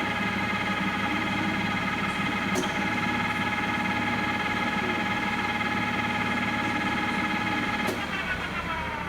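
Takisawa TAL 510 general-purpose lathe running at speed with a steady, many-toned mechanical whine. About eight seconds in, the whine starts falling in pitch as the lathe winds down.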